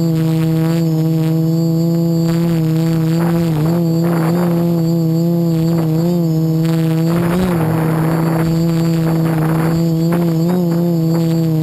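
Quadcopter's electric motors and propellers running with a steady buzzing drone, heard from its onboard camera. The pitch wobbles briefly a few times as the throttle shifts, and two short rushes of noise come through in the middle.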